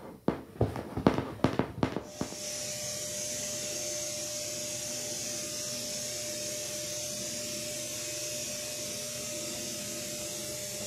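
A few rubs and knocks, then from about two seconds in an electric air pump runs steadily with a constant hum and hiss, inflating a vinyl pool float.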